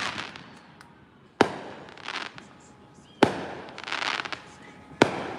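Fireworks going off: three sharp bangs about two seconds apart, with crackling between them.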